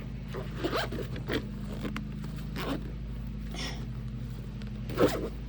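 Zipper on a tool bag or pouch being pulled in several short strokes, over a steady low hum.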